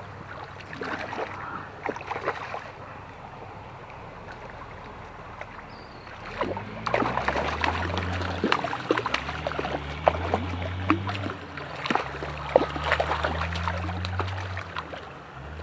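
Creek water splashing and sloshing as a hooked brown trout thrashes at the surface and hands reach in to grab it, with many sharp splashes from about six seconds in, over the steady rush of the stream. A low rumble joins the splashing from about the same point.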